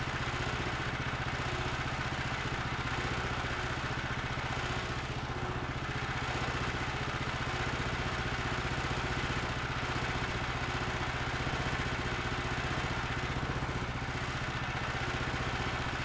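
Gasoline engine of a Woodland Mills portable band sawmill idling steadily, not cutting.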